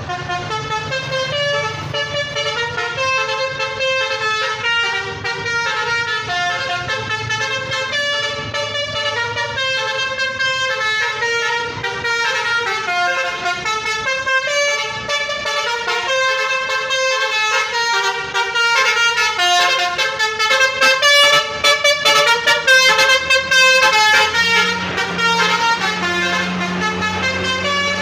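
A tour bus's basuri telolet horn, a multi-tone electric horn, playing a running melody of short notes that change pitch every fraction of a second. It is loudest about two-thirds of the way in.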